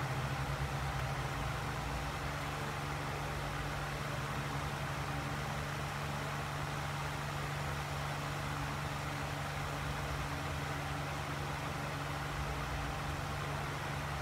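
Steady, even hum of a running machine with a constant low tone, unchanging throughout.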